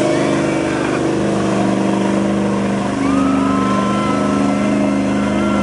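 Lifted pickup truck's engine running steadily under load as it ploughs through a mud pit, with mud and water churning around the tyres.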